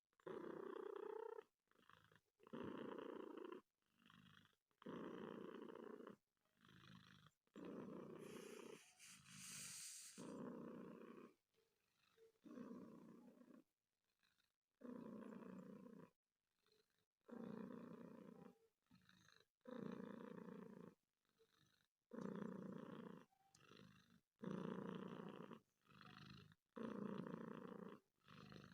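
Domestic cat purring in rough, rhythmic bursts, one with each breath in and out, about every one and a half to two seconds with short pauses between.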